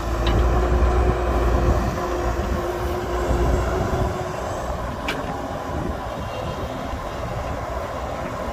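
Heavy diesel engine of an excavator working, with a deep rumble that is heavier for the first two seconds and then eases off a little. There is a short sharp clank about five seconds in.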